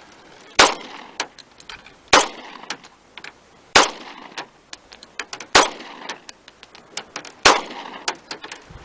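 Five gunshots from a semi-automatic firearm, fired steadily about every two seconds, with smaller sharp clicks in between.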